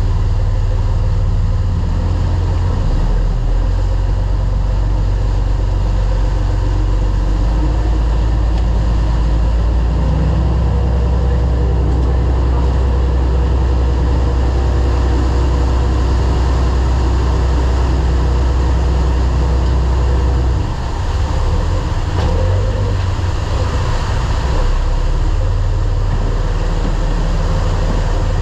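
A large fishing boat's engines running steadily under way, a deep low drone over the rush of the churning wake. About twenty seconds in, the engine note wavers and dips briefly before settling again.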